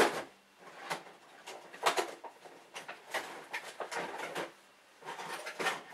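Handling noise from small objects being picked up and moved about on a table: a string of irregular light clicks and rustles with short quiet gaps between them.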